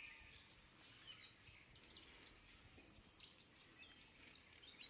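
Quiet outdoor ambience with faint, scattered short bird chirps, several sharp high calls a second or so apart.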